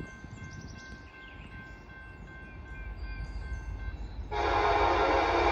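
Approaching freight train: a low rumble builds, then about four seconds in the locomotive's horn starts blowing, loud and steady.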